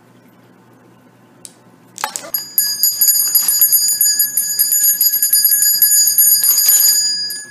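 Small metal handbell shaken fast and continuously, a loud, bright jangling ring. It starts about two seconds in and stops shortly before the end.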